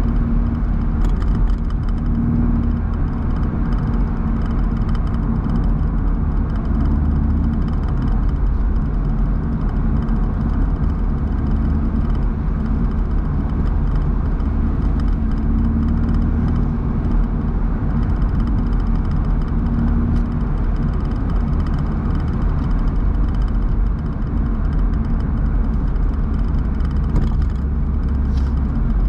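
BMW roadster on the move at steady speed: a constant engine drone over road and wind noise, with no rise or fall in revs.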